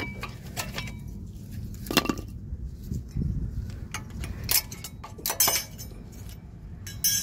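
Metal clinks, scrapes and sharp knocks of worn brake pads being worked and pried out of a disc brake caliper bracket with a screwdriver, a handful of separate knocks with one ringing briefly right at the start.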